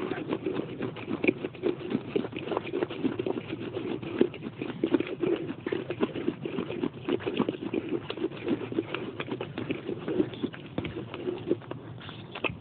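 A person chewing pieces of baked clay pot close to the microphone: a dense, uneven run of crisp crunches and clicks with no break.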